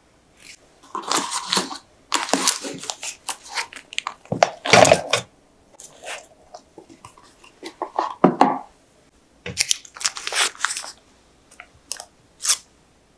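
Plastic cling film being handled, crinkling and tearing in irregular bursts.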